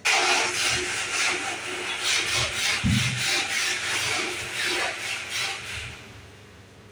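Brisk back-and-forth scrubbing of the lower shelf of a steel rack with a wet brush, about three strokes a second, fading out near the end.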